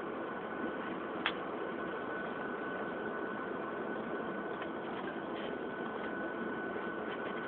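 Steady jet engine and cabin noise inside an airliner on the ground after landing, with a thin steady whine over the rush. A single sharp click comes about a second in.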